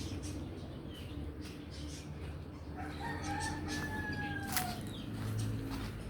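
A rooster crowing once, a single long call that falls slightly in pitch as it ends, about halfway through. A sharp click comes just as the call ends.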